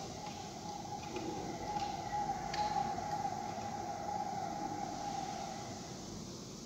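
A steady whistle-like tone, wavering slightly in pitch, holds for about six seconds and then stops, with a few light glass clinks over it.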